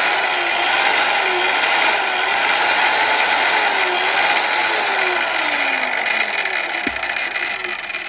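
Electric circular saw's brushed motor running at full speed with no load, a steady high whine that wobbles slightly in pitch, after its field coil has been renewed. It gets a little quieter near the end.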